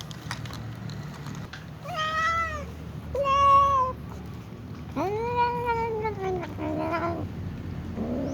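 Little cat meowing four times in arching calls. The second is the loudest and the third is long and drawn out.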